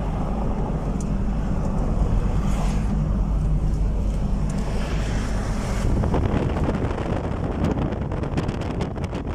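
Car engine and road noise heard from inside the moving vehicle, a steady low hum, with wind buffeting the microphone.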